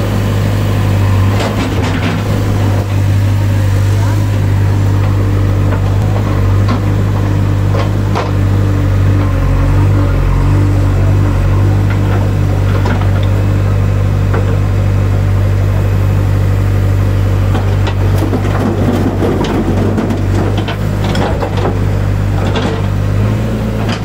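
A steady, unchanging low engine-idle drone of a toy remote-control excavator's engine sound, with scattered small clicks over it.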